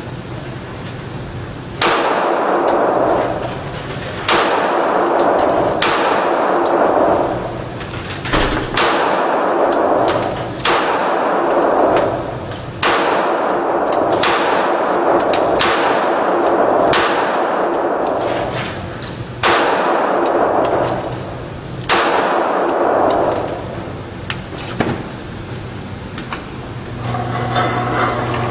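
9 mm handgun being fired, about twenty shots at an uneven pace, roughly one a second, each followed by an echoing ring. The shooting stops a few seconds before the end.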